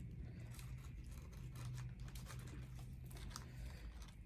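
Faint eating sounds: soft chewing, small tearing and crinkling noises of handling chicken wings, with scattered light clicks.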